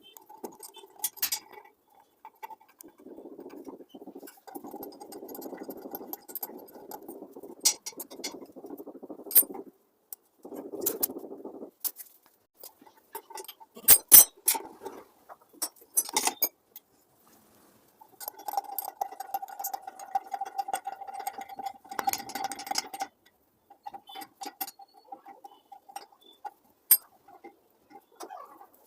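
Scattered sharp clinks and knocks of hard objects being handled, as in plumbing work on a basin. Between them come stretches of steady mid-pitched noise, and for a few seconds past the middle a steady hum.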